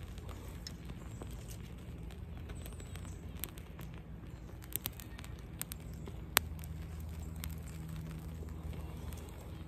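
Small fire of wood shavings and kindling catching and crackling, with scattered sharp pops, one louder pop about six and a half seconds in, over a low steady rumble.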